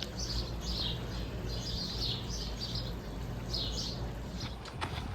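Small birds chirping: short, repeated calls coming several times a second, over a low steady background rumble. A few sharp ticks come near the end.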